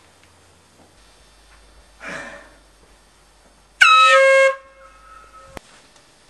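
A single loud blast of an air horn, under a second long, about four seconds in, with a fainter tone trailing off after it.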